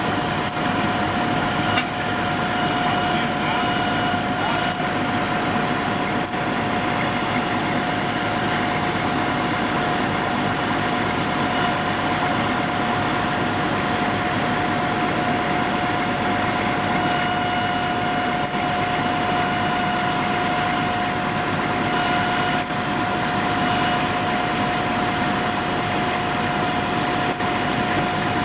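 A vehicle engine idling steadily, with a constant high whine on top.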